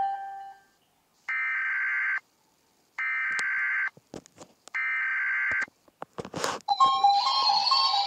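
An EAS-style emergency alarm sounding three bursts of buzzy digital data tones, each just under a second long and a second apart, like an Emergency Alert System header. A few clicks follow, and near the end a new alarm begins with fast repeating beeps over a slowly rising tone.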